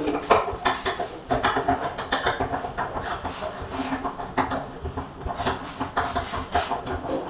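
Irregular clicking and knocking, several a second, of a door knob lockset being handled and fitted.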